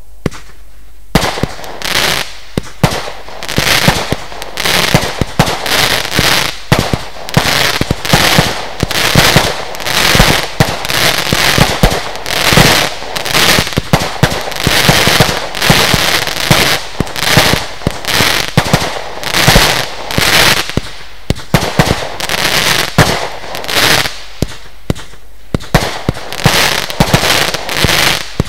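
Lesli Dezemberfest 512-shot compound firework cake firing, with a rapid series of shots launching and bursting that starts about a second in and keeps going. There is a short lull near the end before the shots resume.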